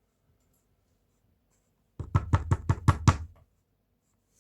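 Soft clay bowl, the hollow body of a bird, tapped against a work board: a quick run of about eight knocks starting about two seconds in, to even it into shape.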